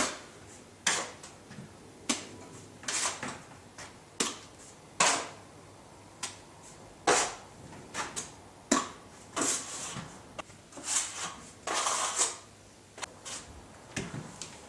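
Dabs of plasterboard adhesive being slapped onto a block wall with a trowel: short wet slaps about once a second, some followed by a brief scrape of the trowel.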